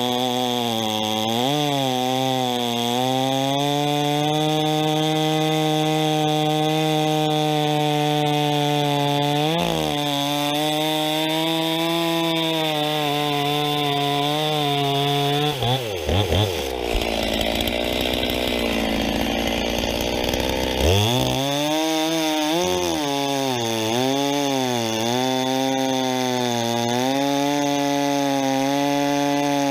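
Stihl 039 two-stroke chainsaw with a 25-inch bar cutting through a large log round. It runs at high speed, its engine note dipping briefly under load a few times and dropping low for several seconds about midway before speeding back up.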